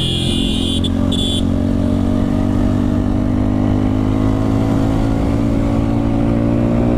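Motorcycle engine running under way at road speed, recorded from the bike itself, its note creeping slightly higher as it picks up speed. A high beep sounds twice in the first second and a half.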